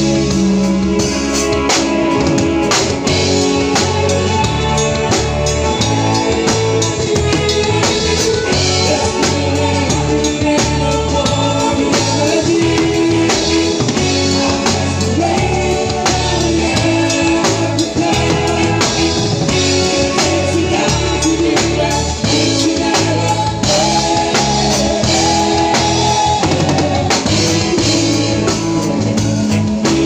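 Live band playing loud amplified music, led by a drum kit with a voice singing over it.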